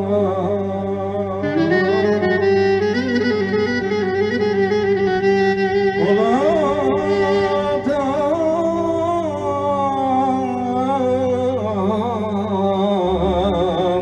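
Clarinet playing a Greek folk melody full of bends and trills, with a quick rising run about six seconds in, over sustained chords and bass from an electronic keyboard.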